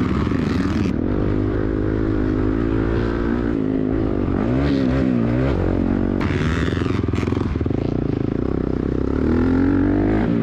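Several motocross dirt bike engines running together and revving, their pitch dipping and climbing as the throttle changes.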